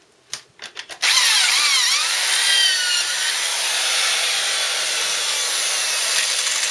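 Electric drill starting about a second in and boring through the cast aluminium casing of a Suzuki Bandit's clutch slave cylinder: a steady cutting noise with a thin whine that dips and rises in pitch as the bit bites. It is drilling a hole to take a through-bolt in place of a fixing screw whose threads are stripped. A few light handling clicks come before it starts.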